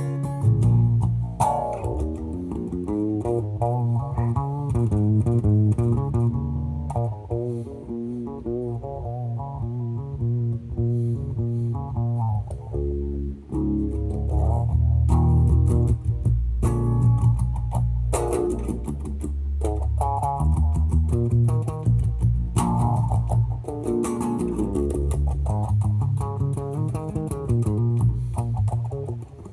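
Background music led by plucked guitar with a prominent bass guitar line and a steady beat.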